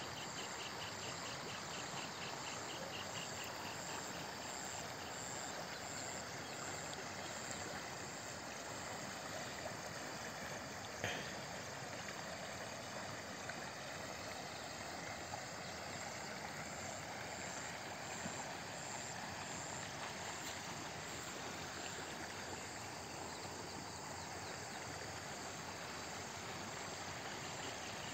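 Insects trilling steadily over the even rush of flowing river water, with a single sharp click about eleven seconds in.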